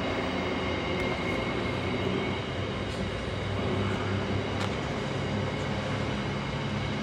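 Container freight train's wagons rolling past at speed: a steady rumble and rattle of wheels on rail, with a thin steady high whine and a few sharp clicks.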